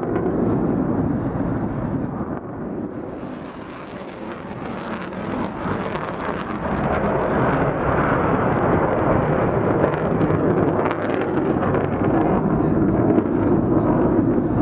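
F-15 fighter's twin jet engines in afterburner, a loud, dense jet noise that fades somewhat about three to four seconds in and then builds again as the jet climbs.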